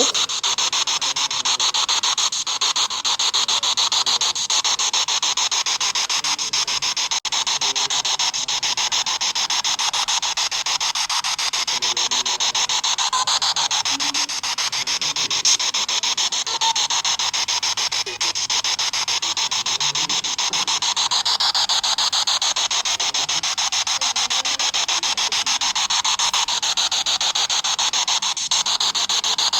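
Steady, loud static hiss from a ghost-hunting spirit box sweeping through radio stations, with a fast flicker and no clear voices.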